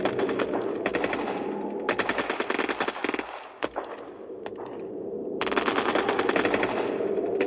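Machine-gun fire in rapid bursts, laid over the pictures as a battle sound effect, with a steady low drone underneath. The firing comes in short bursts, pauses for a couple of seconds in the middle, then runs on continuously from a little past halfway.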